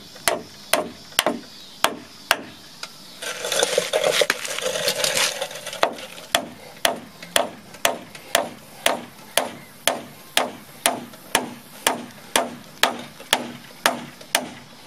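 Steel hammer repeatedly striking a nail into pine framing lumber, about two blows a second, toenailing a nailer block in place. About three seconds in there are a couple of seconds of rustling noise.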